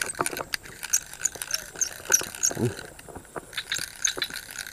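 Irregular clicks and knocks of a fishing rod and reel being handled while a hooked fish is played in.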